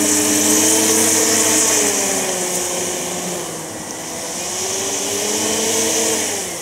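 Electric motors and propellers of an RC Cessna 336 Skymaster model running as it taxis on grass, a steady whirring hum with a high hiss. The pitch sags around the middle, climbs again, then drops away near the end as the throttle comes back.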